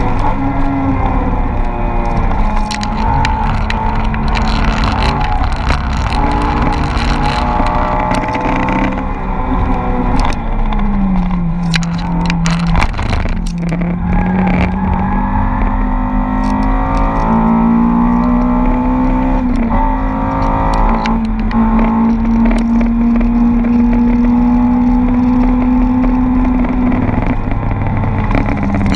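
Honda Civic Type R's engine heard from inside the cabin while lapping hard, with wind and road noise. The revs hold steady, fall sharply about ten seconds in, climb again in steps through the middle, hold high for several seconds, and drop again near the end.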